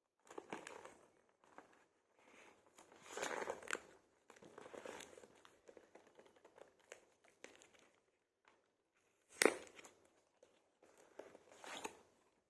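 A sealed retail box being opened by hand: wrapping and cardboard crinkling and rustling in irregular bursts, with one sharp snap about nine and a half seconds in.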